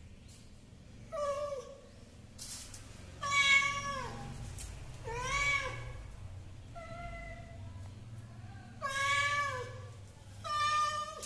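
Domestic cat meowing repeatedly, about six drawn-out meows, most sliding down in pitch at the end: asking to be let out through the door.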